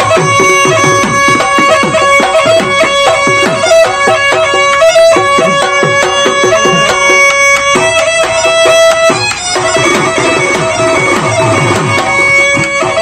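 Bihu folk dance music: drum beats under a wind instrument holding long, steady notes, which move to a higher note about eight seconds in.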